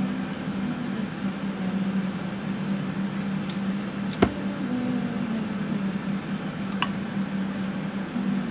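Electric fans running steadily with a constant low hum and whoosh. A single sharp metallic click about four seconds in, with a couple of fainter ticks around it.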